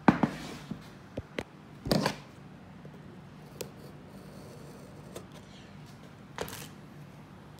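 Handling noises of a cardboard box: scattered sharp clicks and taps, with a few short scraping rustles, as a scissor blade is worked into the clear security seal sticker on the box's edge.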